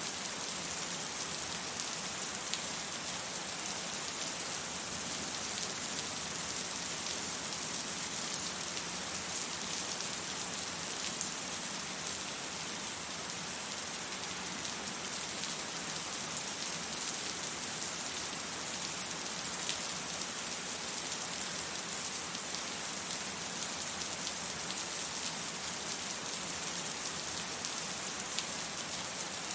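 Steady rain falling and pattering on hard surfaces, an even hiss with fine drop ticks and no thunder.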